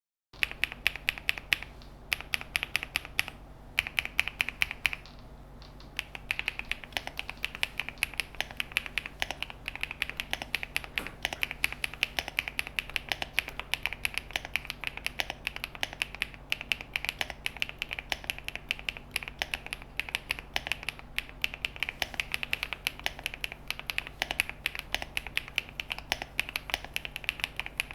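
Typing on a QK75 mechanical keyboard fitted with HMX Lotus linear switches (POM stems, nylon housings): a rapid, continuous stream of keystrokes, with short pauses about four and five seconds in. A steady low hum sits underneath.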